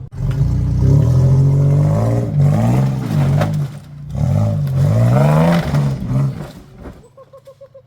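Off-road vehicle's engine revving hard in two long bursts, its pitch climbing and falling as it works, then dropping away suddenly about seven seconds in.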